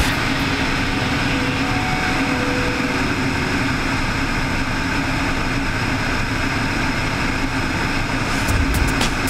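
Single-engine float plane in flight: a steady engine and propeller drone over rushing airflow, holding even throughout.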